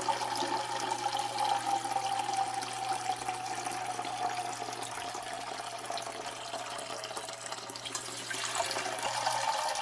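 A steady stream of liquid splashing into standing water, the sound of peeing into a toilet bowl. Its pitch sinks slowly, then jumps back up about eight seconds in.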